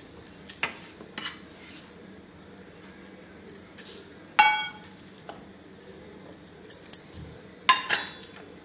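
Light clicks and knocks from handling a stainless steel mixing bowl as flour is added, with two sharp metallic clinks that ring briefly, about four and a half seconds in and near the end.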